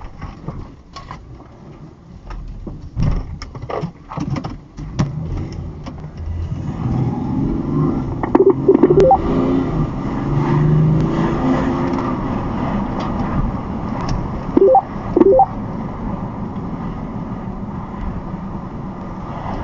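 Car engine accelerating, heard from inside the cabin, its pitch rising and falling for about ten seconds. The first few seconds hold a string of sharp knocks and rattles.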